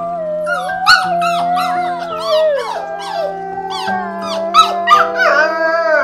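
Wolf pup howling: one long wavering howl with short higher cries breaking in, over background music with held notes.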